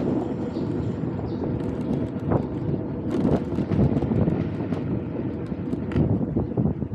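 Wind buffeting the helmet-mounted camera's microphone while riding an electric scooter: a fluctuating low rumble with a faint steady hum, and scattered small clicks and rattles through the middle.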